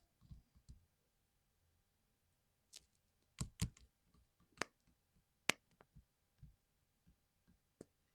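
Small plastic keyboard parts clicking and tapping as a 60% mechanical keyboard is worked on: irregular sharp clicks with pauses between them, the loudest few between about three and six seconds in.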